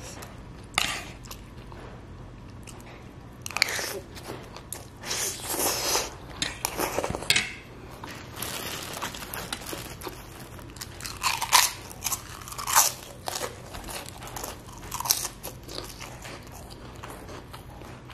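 Close-miked eating: a mouthful of fried noodles and ketoprak being chewed, with sharp, loud crunches of a puffy kerupuk cracker being bitten and chewed. The crunches come in clusters, a few seconds in and again past the middle.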